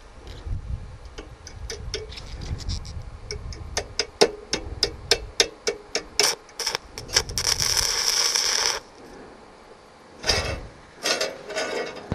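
Arc-welding electrode being tapped and scratched on a metal plate to strike an arc with a SUZUKID IMAX80 welder: a string of sharp clicks and crackles, then the arc catches and sizzles for about two and a half seconds before it suddenly goes out, with two more short spits of arc near the end. A beginner struggling to strike and hold the arc.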